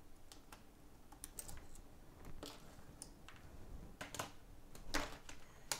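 Scattered small clicks and taps from an iPhone 8 logic board being lifted out of its housing and handled, a few sharper clicks in the second half.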